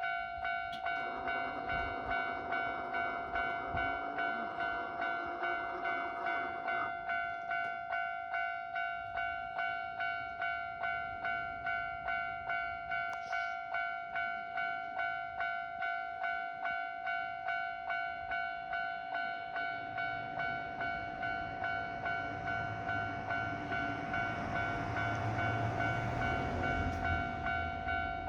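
Japanese level-crossing alarm ringing its repeated two-tone electronic bell, about two strikes a second without a break. Near the end a train rumbles past through the crossing, its noise swelling over the bell.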